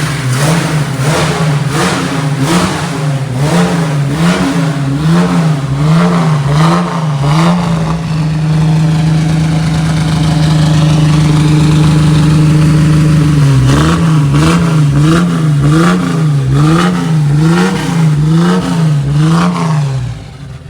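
1973 Chevrolet Opala SS straight-six with a stainless-steel exhaust and a Weber carburettor, being revved during carburettor tuning. The throttle is blipped rhythmically, rising and falling about every two-thirds of a second, then held at a steady higher rev for about five seconds, then blipped again before it drops back near the end.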